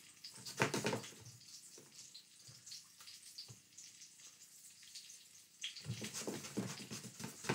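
Water running from a kitchen tap into the sink, starting about six seconds in. Before it there are a few faint clicks and knocks of handling at the sink.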